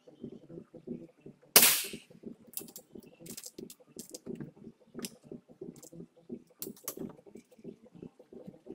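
A BRK Ghost pre-charged pneumatic air rifle fires a single sharp shot about a second and a half in, followed by a run of smaller metallic clicks as the rifle is cocked and reloaded while tilted over to the left. It has to be tilted because its sears fail to latch when the rifle is held upright.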